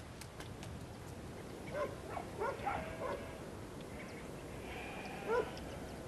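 Faint animal calls: a few short rising calls about two to three seconds in and one more about five seconds in, over a low steady background.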